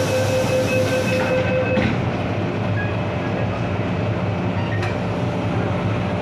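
MTR Island Line M-Train running through the tunnel: a steady rumble of wheels on rail, with a steady whine that cuts off about two seconds in.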